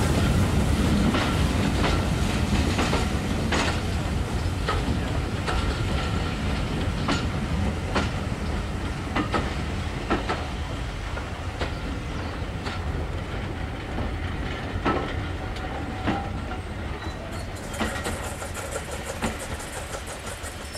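Passenger coaches of a steam train rolling past, their wheels clicking over the rail joints about once a second above a steady low rumble that slowly fades as the train draws away.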